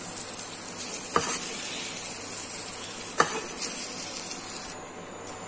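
Cut okra sizzling in oil in an aluminium kadai while a perforated metal spoon stirs and scoops it out, knocking sharply against the pan twice. The sizzle thins out near the end.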